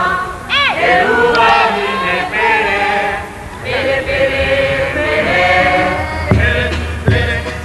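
A group of voices singing together in a chant-like Polynesian choral song. About six seconds in, drum strikes join in, a few sharp beats.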